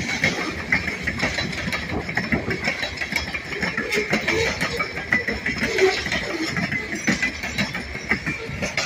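Freight train of covered hopper cars rolling past, steel wheels clicking and clanking over the rail joints while the cars rattle, a dense, irregular run of metallic knocks.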